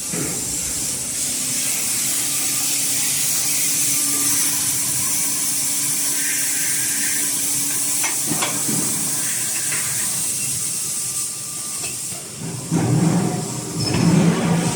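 Steady spraying hiss of an automatic die lubrication spray system on a forging line, with a sharp click about eight seconds in and louder, lower machine noise near the end.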